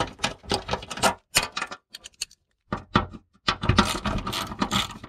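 Irregular metallic clicks and scrapes as bolts are loosened and spun out by hand from a car's sheet-metal inner fender panel. The clicking stops briefly a little after two seconds in, then comes back denser near the end.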